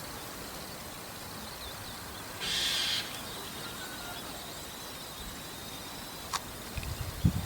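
White-cheeked starling giving one short, harsh call a couple of seconds in, over faint steady background noise; a small click and a low bump near the end.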